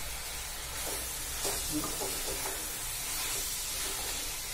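Chicken with onion and tomato sizzling in a kadhai, with a few light scrapes of a wooden spatula stirring through the pan.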